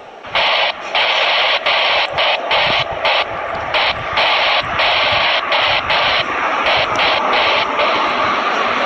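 Jet engines of an Airbus A330 airliner running at high power on the runway: a loud, steady hissing roar that comes in suddenly just after the start and keeps dropping out for split seconds, many times over.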